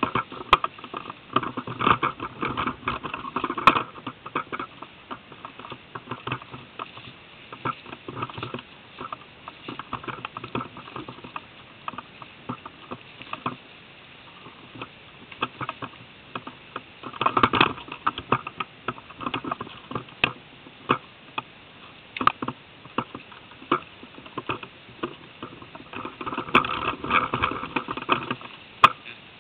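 Irregular rustling and crackling of leaves, twigs and brush, with denser bursts about two seconds in, about halfway through and near the end.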